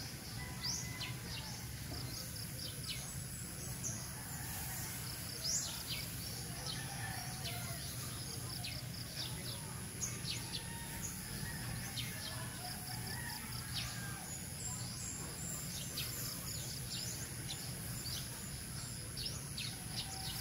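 Morning birdsong: many short, high chirps and whistled calls from several birds, some in quick runs of repeated notes, over a steady high-pitched tone.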